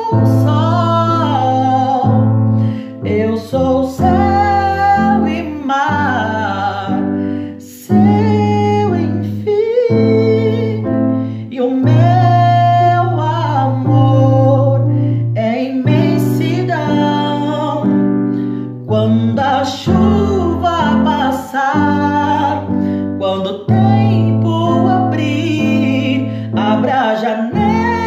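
A man singing a slow Portuguese-language pop ballad, with long held and rising notes, over an instrumental accompaniment.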